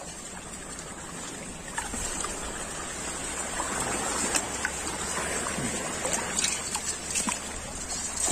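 Water sloshing and trickling with small splashes as people move through high-tide creek water. A steady high-pitched hiss runs underneath.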